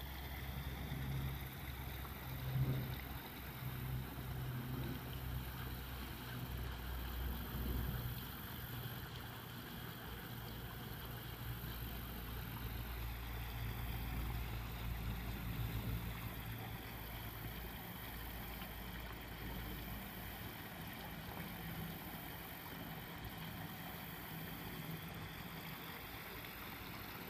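Water from a garden pond's rock waterfall splashing steadily into the pond, over a steady low hum that fades about two-thirds of the way through.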